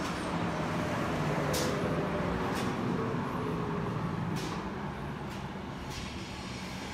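Street traffic: a road vehicle's engine and tyre noise, slowly fading, with a few short high hisses.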